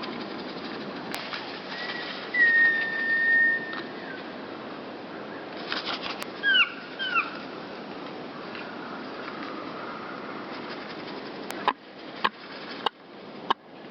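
Small songbirds, great tits and blue tits, calling: one long steady whistled note, then two short falling notes, with brief wing flutters. Several sharp clicks or taps near the end, over a steady background hiss.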